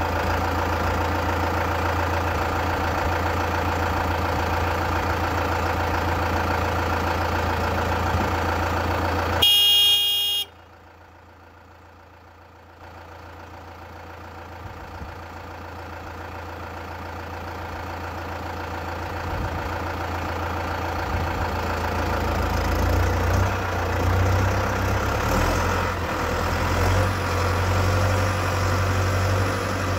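Valtra M120 tractor's diesel engine idling steadily, with a short horn blast about ten seconds in. Right after the horn the engine sound drops away abruptly, then builds back up gradually over about ten seconds.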